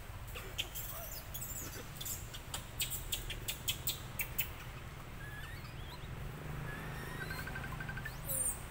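Tropical forest ambience: a quick run of short, sharp high-pitched clicks and chirps about two to four seconds in, then scattered small chirps and a fast trill of ticks near the end, over a steady low hum.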